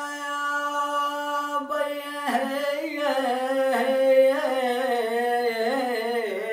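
A man singing solo in Palestinian zajal folk style, with no words to be made out. He holds one long note at first, then from about two seconds in sings a wavering, ornamented line that rises and falls.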